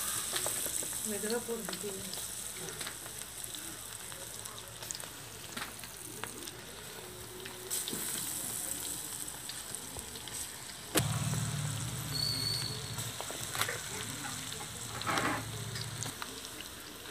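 Vadai batter deep-frying in hot oil in an aluminium kadai, a steady crackling sizzle with small pops. About eleven seconds in there is a sharp knock, followed by a low hum for about five seconds.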